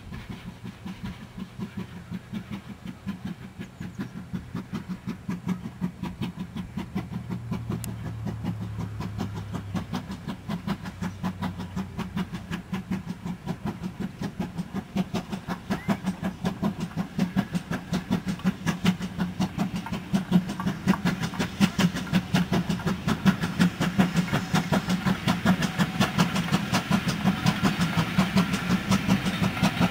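GWR 0-6-2 'Taffy tank' 6695 steam locomotive working a train, its exhaust beating in a rapid, even rhythm that grows steadily louder as it approaches.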